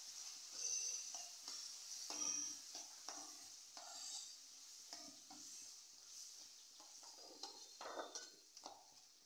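Spatula stirring peas, tomatoes and curd in a kadai, scraping the pan in irregular strokes over a faint steady sizzle of the frying mixture.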